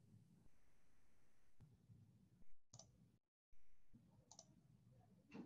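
Near silence: faint room tone over a video-call link, with a few short faint clicks in the second half and a brief total dropout of the audio a little over three seconds in.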